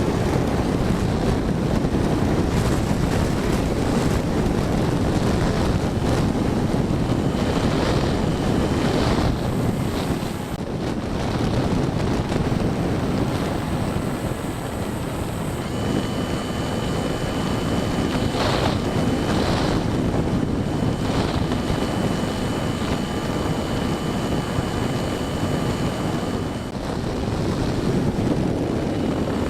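Wind rushing over an action camera mounted under the wing of an E-flite Apprentice STS 1.5m RC trainer plane in flight, mixed with the whine of its electric motor and propeller. A steady high motor tone comes in about halfway through.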